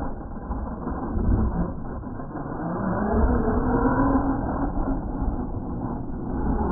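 Losi LMT radio-controlled monster truck's brushless electric motor whining under throttle, the whine rising and falling in pitch from about two seconds in, running on a 3S battery. Heard over a low rumble, with a muffled, dull sound overall.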